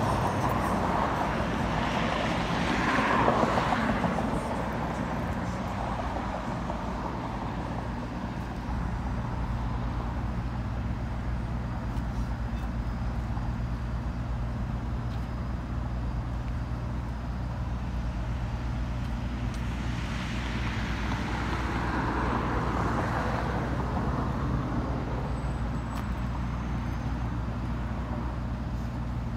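Road traffic: two vehicles passing, swelling and fading about three seconds in and again about twenty-two seconds in, over a steady low hum.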